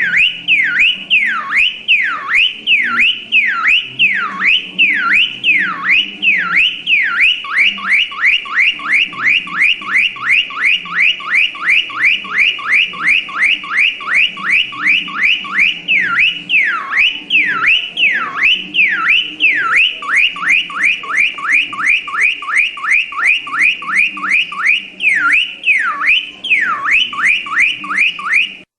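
Car alarm siren cycling through its patterns: slow up-and-down wails, then a long run of fast chirps about three a second, then slow wails again and fast chirps, cutting off abruptly near the end.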